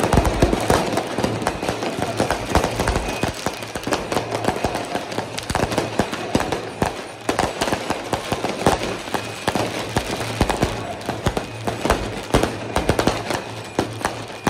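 Fireworks going off overhead: a dense, unbroken string of bangs and crackles from aerial shells and firecrackers bursting.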